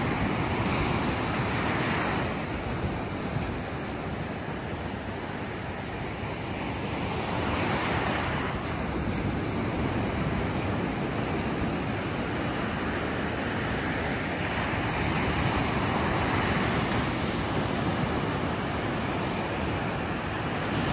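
Ocean surf breaking and washing up a sandy beach: a steady rushing hiss that swells louder about every seven to eight seconds as each wave breaks.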